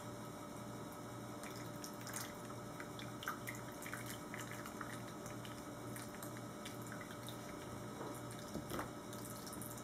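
Lye water trickling and dripping from a glass jar through a small mesh strainer into a bowl of oils. Soft, scattered drips over a low steady hum.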